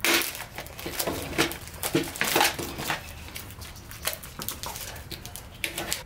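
Plastic packaging of a weatherproof in-use outlet cover crinkling and crackling as it is pulled open and the cover is taken out, in a string of short rustles and clicks, busiest in the first few seconds and then sparser.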